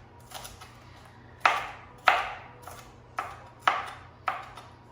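Kitchen knife chopping peppers on a cutting board: about eight sharp, irregular strikes of the blade against the board, the loudest ones about one and a half and two seconds in.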